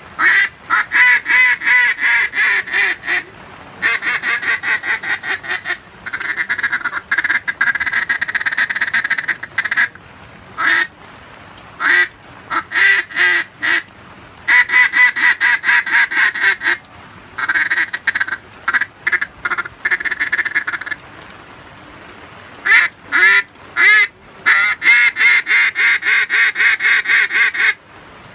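Reed duck call from SP Calls blown as mallard quacks: strings of separate quacks about four a second, alternating with longer, faster runs of rolling chatter, the calls broken by short pauses. A steady hiss of heavy rain lies under the pauses.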